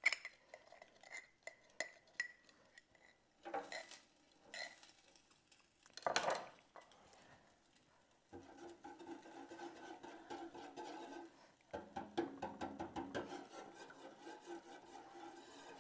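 Wire whisk stirring turkey gravy in the metal pan of a Hamilton Beach roaster oven: a few separate clinks and knocks at first, the loudest about six seconds in, then from about eight seconds in a steady run of quick scraping and sloshing strokes as roux is whisked into the gravy to thicken it.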